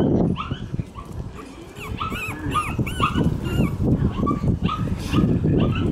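Shiba Inu puppies, about a month old, whimpering in a run of short, high, rising-and-falling yips, thickest in the middle of the stretch.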